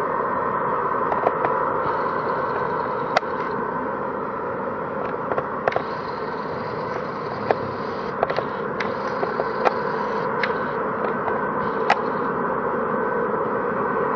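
Steady rushing jet-engine noise with a faint whine from an Airbus A330-343's Rolls-Royce Trent 700 turbofans as the airliner moves slowly along the runway, heard from a distance. About a dozen sharp clicks stand out now and then.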